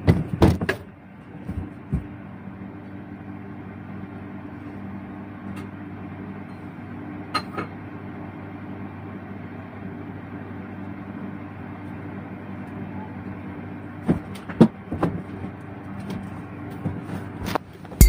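A steady low mechanical hum, with a few sharp knocks and clicks from the phone and its tripod holder being handled, more of them near the end.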